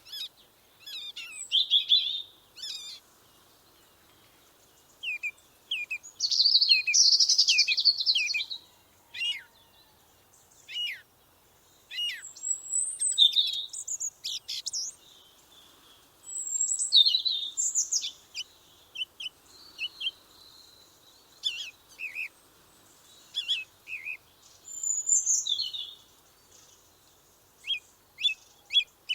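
Small songbirds chirping and singing in short bouts of quick, high-pitched notes and trills, with brief pauses between the phrases.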